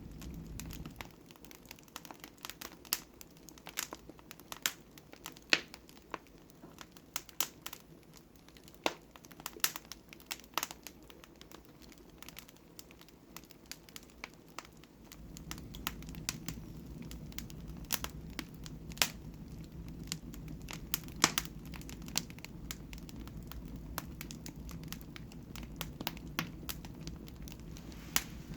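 Wood fire in a fireplace crackling, with sharp irregular pops; a low steady rumble joins about halfway through.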